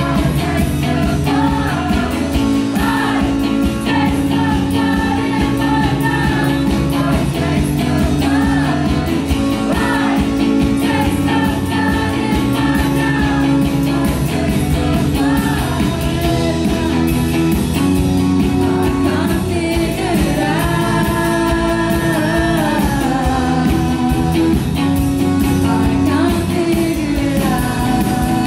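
Live rock band performing: a woman sings the lead melody over strummed guitar and a drum kit with cymbals.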